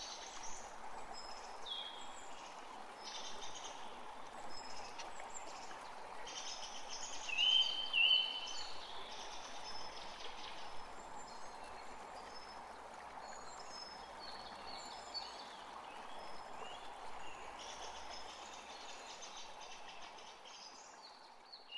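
Outdoor ambience of birds chirping and calling in many short high notes, over a steady background hiss; one louder call stands out about seven to eight seconds in.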